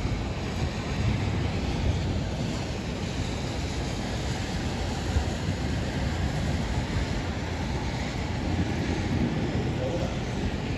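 Steady rush of strong thunderstorm wind gusts, with the wind buffeting the microphone.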